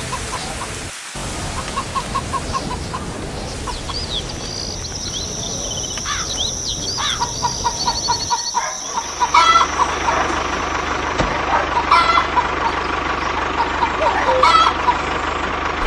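Farmyard chickens clucking and calling among other birds chirping, with short repeated calls and rising-falling notes. A low steady hum joins about nine seconds in.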